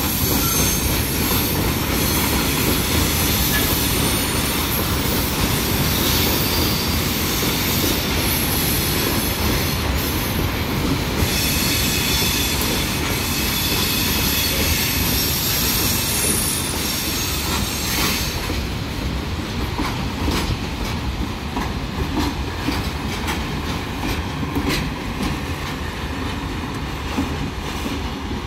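Loaded freight train container wagons rolling past close by: a steady, loud rumble of wheels on rail with a dense high rushing noise over it. About two-thirds of the way through, the high rushing thins out and separate sharp clicks of the wheels stand out.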